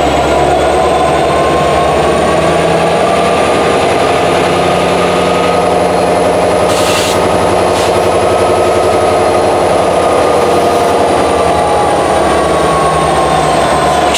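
EMD 16-710 two-stroke V16 diesel prime mover of a freight locomotive running loud and steady, its pitch rising slightly and easing back down. Two short clicks about halfway through.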